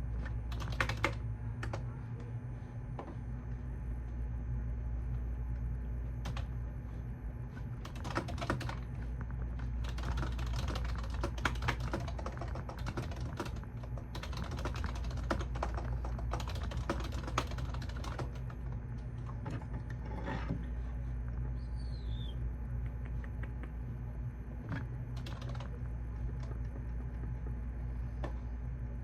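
Typing on a computer keyboard in spurts of rapid key clicks with short pauses between them, over a steady low hum.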